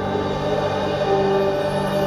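Slow ambient music made of long held notes that shift gradually, with no clear beat.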